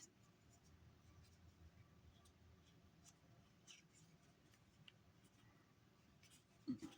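Near silence with faint, scattered small ticks and rubs: handling of a small reflex sight and its lens cover.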